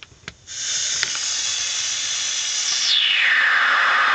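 Broadband noise from a noise generator played through a homemade op-amp audio bandpass filter. After a couple of clicks it comes in about half a second in as a loud, steady hiss. Near the end the band sweeps down in pitch into a falling whoosh as the filter's potentiometer is turned, which gives the circuit's phasing sound.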